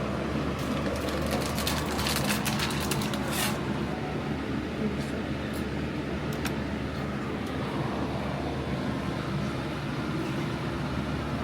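Restaurant room noise: a steady low hum with scattered sharp clicks and clinks, bunched in the first few seconds.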